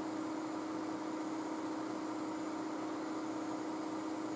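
Hot air rework station blowing steadily onto a BGA chip to reflow its solder: an even hiss of air with a steady hum from the blower.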